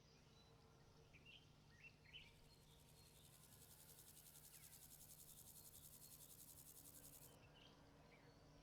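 Grasshopper stridulating: a faint, fast-pulsed high-pitched buzz starting about two seconds in and cutting off sharply about seven seconds in. A few short bird chirps come before it and near the end.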